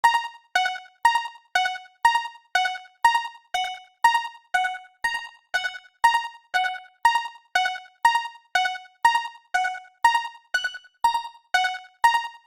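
Japanese railroad-crossing warning bell ringing on and on, about two strikes a second, alternating a higher and a lower tone.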